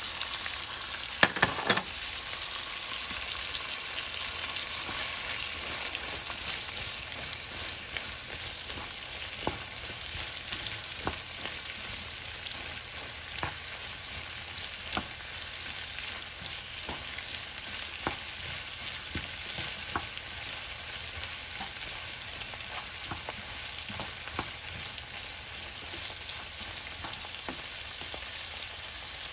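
Vegetables and egg sizzling in a hot nonstick frying pan, stirred and turned with a wooden spatula that scrapes and taps against the pan. A few loud sharp knocks come about a second in.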